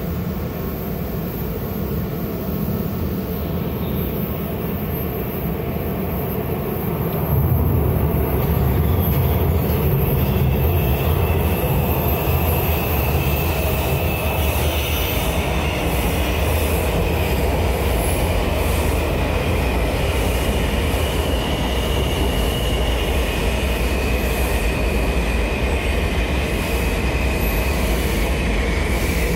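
Washington Metro subway train running in an underground station, a steady rumble that gets louder about seven seconds in. Steady high-pitched wheel squeal joins in the second half.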